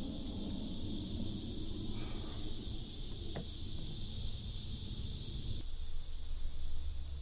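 Steady high outdoor hiss with a short rustle, then a single sharp click about three and a half seconds in as a plastic water bottle is set down on a wooden bench. Just after halfway the hiss stops abruptly and a steady low hum takes over.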